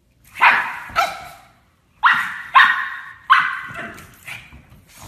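Pug barking: about five sharp barks, a pair and then a quicker run of three.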